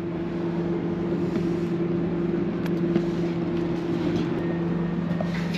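Power drill running steadily as it backs a screw out of a teak deck, with a constant hum that eases off near the end.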